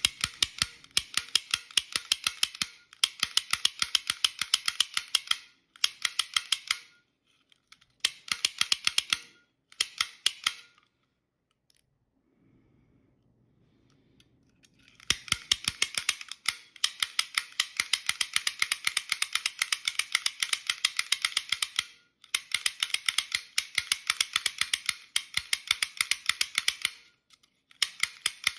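Lock snap gun being triggered over and over in a lock, several sharp metallic snaps a second as its arm flicks the pins upward. The snaps come in runs of a few seconds, with short breaks and one longer pause about halfway through.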